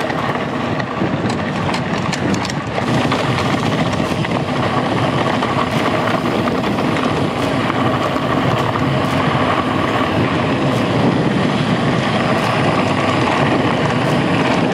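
Steady rolling and wind noise of a mountain bike riding a dirt trail, picked up by an onboard action camera, with a few light clicks and rattles a second or two in.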